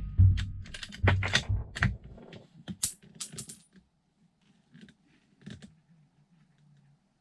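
Handling of a 6.5x55 rifle between shots: several sharp knocks and clacks in the first two seconds, then a light metallic tinkle of brass, and a few faint clicks near the end.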